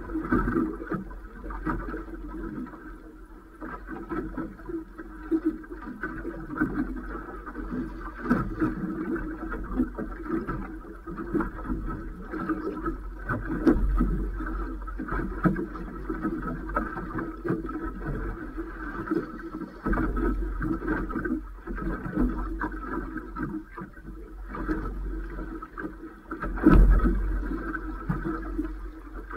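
Choppy waves slapping and lapping against the hull of a drifting fishing boat, with wind rumble on the microphone and scattered knocks. One louder knock comes near the end.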